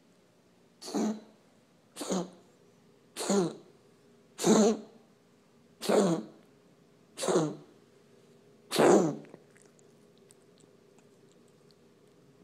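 A pet's coughing spell: seven short coughs about a second and a half apart, each falling in pitch. The spell stops about nine seconds in.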